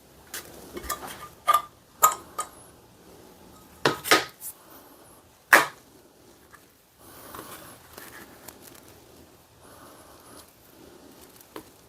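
A handful of sharp clinks and knocks of hard objects being handled and set down, the loudest about five and a half seconds in, followed by softer rustling and shuffling.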